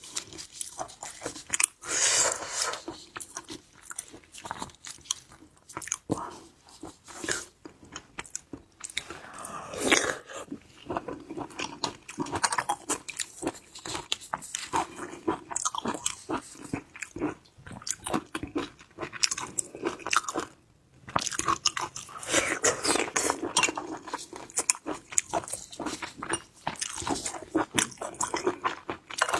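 Close-up crunching and chewing of shellfish: shells being bitten and cracked in dense runs of sharp crackles, with a few short pauses.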